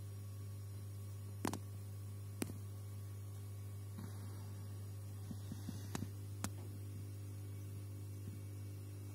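A steady low hum, with a few sharp clicks scattered through it, the loudest about a second and a half in.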